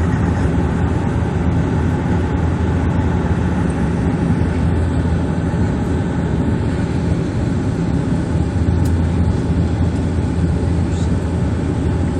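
Bombardier Dash 8 Q400 turboprop heard from inside the cabin in flight: the steady drone of its propellers and engines, with a low hum.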